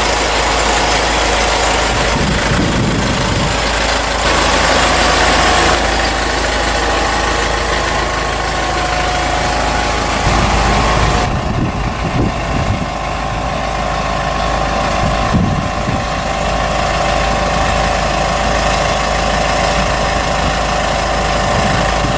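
A farm harvesting machine running: a steady, loud engine drone with mechanical rattle and a constant whine. The sound shifts abruptly twice, about 6 and 11 seconds in.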